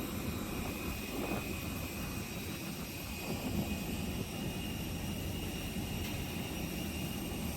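Steady whine and rush of an Airbus A320 jet airliner on the ground after landing: an even low rumble with several high steady tones over it.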